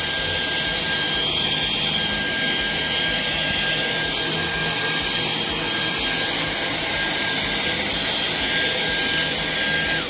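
Dyson V11 Extra cordless stick vacuum running steadily while pushed over carpet: a constant high motor whine over the rush of air. It cuts off abruptly at the end.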